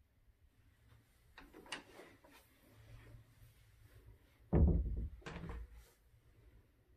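Interior closet door being swung shut, with a few light clicks from the door and latch. About four and a half seconds in comes a louder, dull low thump.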